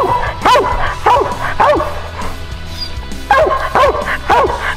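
A treeing dog barking up a tree over and over, about two barks a second, each bark rising and then falling in pitch. The barks stop for about a second midway, then start again. This is a squirrel dog's treed bark, the sign that it has its quarry up the tree.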